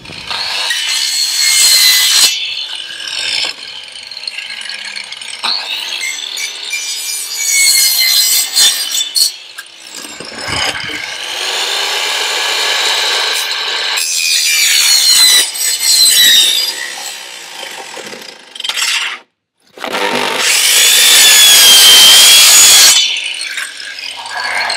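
Handheld power tool cutting lengthwise through PVC pipe, its motor whine wavering up and down as the blade bites, in several long passes with short breaks. It stops for a moment a little before the end, then cuts again at its loudest.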